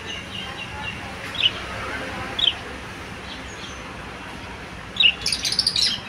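Small cage birds, budgerigars among them, chirping: single short high chirps about once a second, then a quick run of many chirps near the end.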